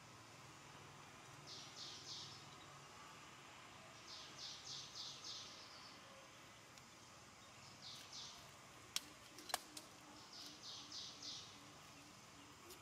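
A small bird calling faintly: short high trills of four to six quick notes, repeated every two or three seconds. Two sharp clicks come close together about nine seconds in.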